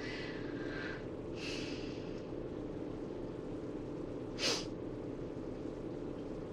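A person's breathing, quiet and close to the microphone: two airy exhales in the first two seconds and a short, sharp nasal breath about four and a half seconds in, over a steady low hum.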